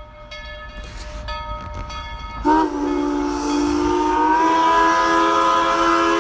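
Steam locomotive whistle on the Dollywood Express: a few quieter, choppy notes, then about two and a half seconds in a loud, long chord whistle blast that rises slightly in pitch as it comes up and holds.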